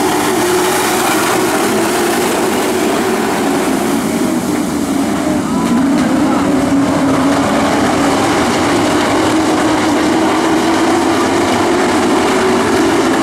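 A pack of dirt-track pro race trucks running at speed, their many engines blending into one loud, continuous sound whose pitch wavers as the field circles the track.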